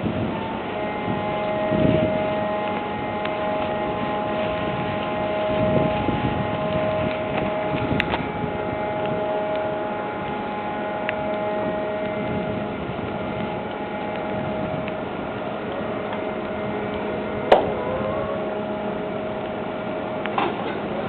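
Machinery running steadily, a noisy hum with several held whining tones, one of them coming and going; a sharp click about seventeen seconds in.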